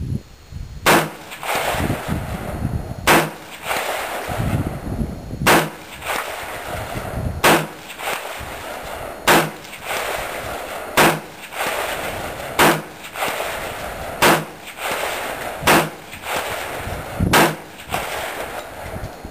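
A rifle firing 55-grain Federal bulk rounds in a steady string of about ten shots, roughly one every two seconds, each shot trailed by a ringing echo. Wind buffets the microphone between shots.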